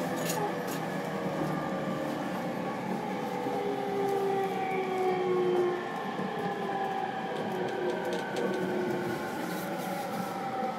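Running sound inside a JR East E231 series electric train's motor car: the traction motors and VVVF inverter whine as several tones falling slowly in pitch as the train slows, over steady rumble from wheels on rail, with a few faint clicks.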